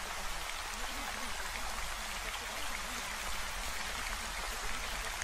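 Steady recorded rain sound with faint, low, voice-like murmurs beneath it, as in a subliminal affirmation track layered under rain.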